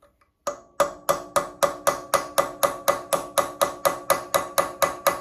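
Hammer striking a sharpened steel tool dug into a sheared exhaust stud, knocking it round to unscrew it. Quick, even blows about four a second, each with a short metallic ring, starting about half a second in.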